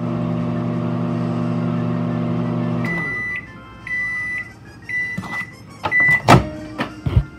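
Microwave oven running with a steady hum that cuts off about three seconds in, followed by four short high beeps about a second apart signalling that the heating cycle is done. Then come a few sharp clunks, the loudest near the end.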